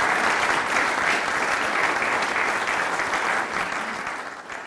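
Audience applauding, the clapping dense and steady, then dying away near the end.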